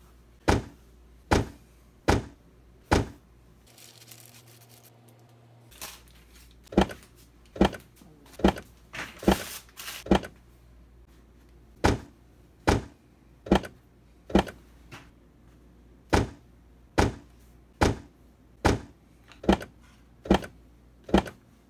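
A run of sharp clicks and knocks, about one a second: glass power tubes (6L6GC) being rocked out of and pushed into their octal sockets during a tube swap on a Fender Twin Reverb.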